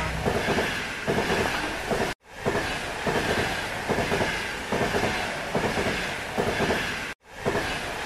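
Train running over the rails, wheels clattering in a steady rhythm. The sound cuts out abruptly twice, about two seconds in and again about seven seconds in, and starts again at once each time.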